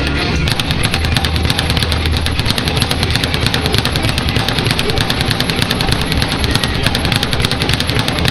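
Speed bag being punched continuously, rattling against its rebound board in a rapid, even drumroll of many strikes a second.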